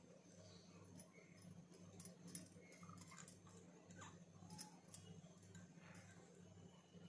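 Near silence: room tone with a steady low hum and a few faint, scattered ticks.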